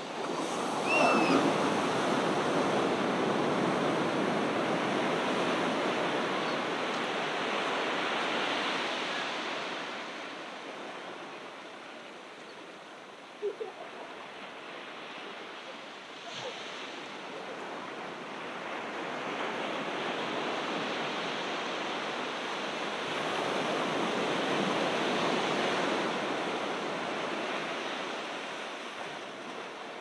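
Ocean surf breaking and washing up the shore in long swells. It is loudest about a second in, eases off around the middle, then builds again.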